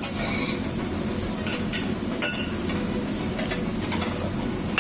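A stir-fry sizzling in a wok, with metal utensils clinking and scraping against the pan several times.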